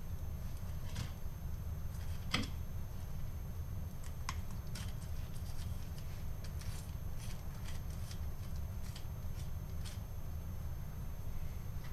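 Fillet knife slicing a fillet off a yellowtail snapper on a plastic cutting board: soft scrapes and small clicks at irregular moments, over a steady low hum.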